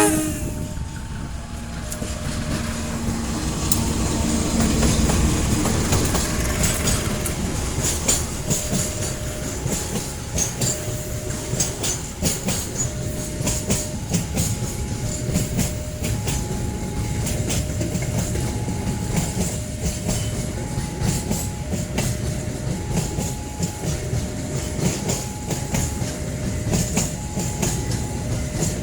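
Long passenger train passing close by, its wheels clattering quickly over the rail joints. A level crossing warning alarm sounds alongside, two tones alternating about once a second. A brief horn note cuts off right at the start.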